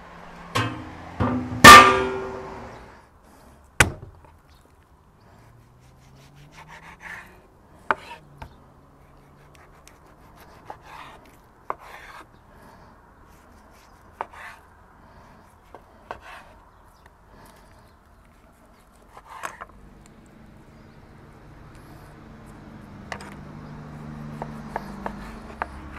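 A heavy metal cookware lid clanks down with a brief ringing, followed by a knife slicing raw beef with scattered light knocks of the blade on a wooden cutting board. A low steady hum builds near the end.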